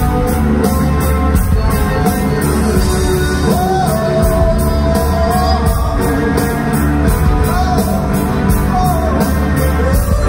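Live rock band playing through a concert PA: drums keep a steady beat under guitars, with singing that holds long, wavering notes.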